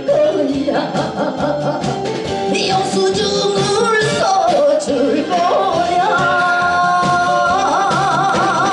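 Korean trot song performed live: a woman singing into a microphone over a backing track, with long held notes in a wide vibrato in the second half.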